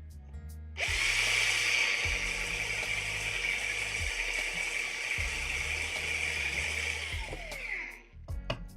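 Small electric drill running steadily for about seven seconds, then winding down with a falling pitch as it is switched off, drilling into a die-cast Hot Wheels car.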